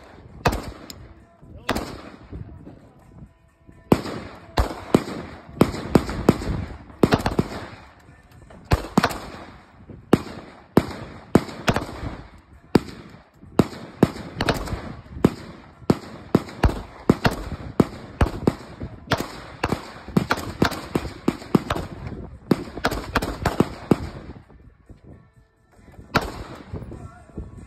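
Gunfire at a shooting range: many sharp shots, some single and some in quick strings of several a second, with a short break about 25 seconds in.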